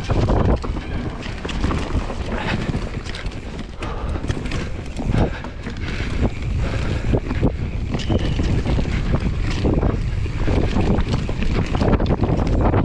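Mountain bike riding fast down a dirt forest trail, with heavy wind buffeting on the microphone, tyres on loose dirt and frequent knocks and rattles from the bike over bumps.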